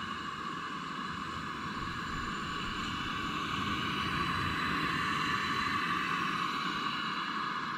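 Two-burner LPG camp stove burner running under a billy of water, a steady hiss that grows slightly louder partway through.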